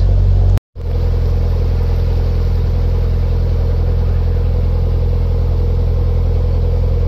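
A narrowboat's engine running steadily while the boat cruises along the river. The sound cuts out completely for a moment about half a second in, then the same engine hum picks up again.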